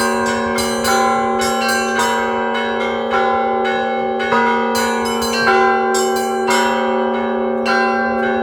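Cathedral bells rung together in an Orthodox-style ensemble peal (zvon). Several bells are struck in a quick, uneven pattern, about one to two strikes a second, over a low bell tone that rings on steadily.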